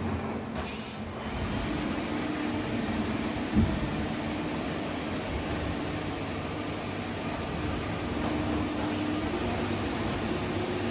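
Daewoo Puma 230M CNC lathe running: a steady mechanical noise with a low hum, and one sharp knock about three and a half seconds in.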